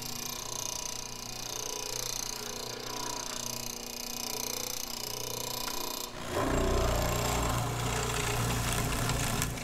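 Bullet tilting hollow chisel mortiser running, its half-inch square chisel and auger boring a square mortise into a wooden stair shoe rail. The cutting gets louder about six seconds in.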